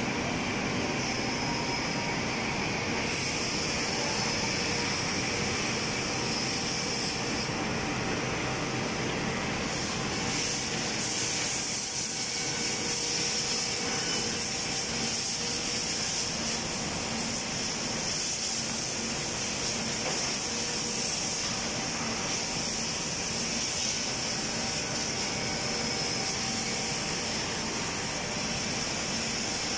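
Woodworking production-line machinery running steadily: a continuous even machine noise with faint steady hum tones and a hiss on top that gets a little stronger partway through.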